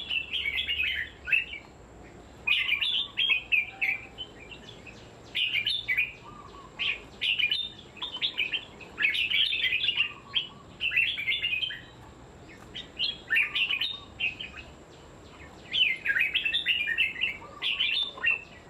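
Red-whiskered bulbul singing short bursts of quick chirpy phrases again and again, with brief pauses between.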